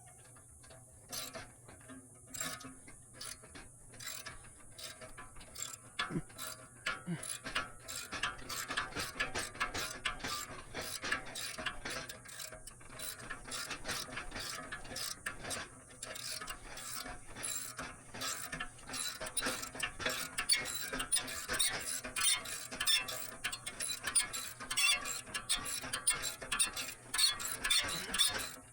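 Socket ratchet wrench clicking as a nut on a seized condenser fan motor is worked loose. The clicks come in sparse strokes at first and run into fast, continuous runs from about eight seconds in, busiest near the end.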